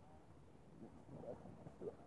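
Near silence: quiet outdoor ambience, with faint, indistinct wavering sounds starting about a second in.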